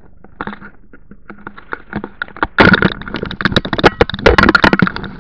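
Handling noise from a camera held right against a bicycle: scattered clicks and knocks, then from about halfway a louder stretch of crackling, rubbing and knocking as the camera is gripped and moved about close to the microphone.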